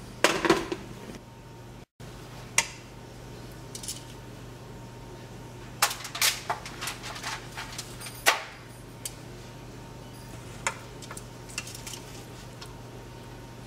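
Metal tongs clinking and scraping against the stainless steel inner pot of a Power Pressure Cooker XL as cooked ribs are lifted out. The clinks are sharp and scattered, with a busier run about six to seven seconds in, over a steady low hum.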